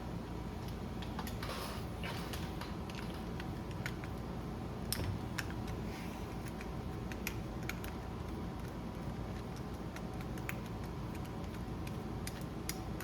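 Scattered small clicks and taps of tools and metal parts being handled on a small-engine carburetor as the main jet is unscrewed, over a steady low background hum.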